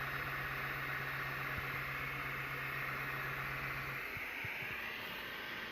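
Bambu Lab P1P 3D printer's fans running with a steady whirring hiss, and a low hum that cuts out about four seconds in.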